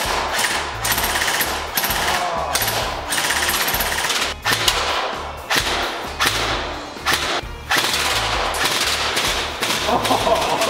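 Airsoft rifles firing long fully automatic bursts, a fast rattling stream of shots broken by short pauses.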